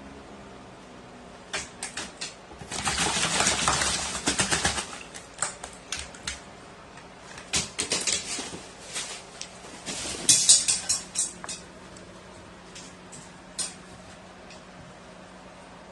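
Scattered quick taps and clicks and short bursts of rustling from an animal moving about, with a denser two-second flurry of rustling about three seconds in and another cluster of taps around ten seconds in.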